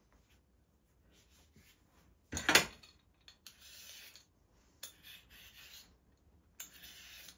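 Vegetable peeler scraping along a raw carrot, peeling off strips in about four separate strokes; the stroke about two and a half seconds in is much louder than the rest.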